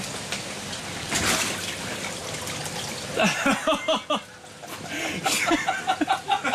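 Water sloshing and trickling in an inflatable ice-bath tub as the man in it moves, with a louder splash about a second in. From about three seconds in, voices are heard over the water.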